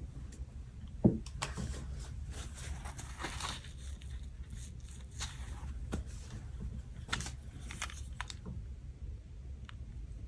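Tombow white-out being applied to a paper planner page in short scratchy strokes, covering a mistake. There is a sharp knock about a second in and light clicks and taps of handling later on.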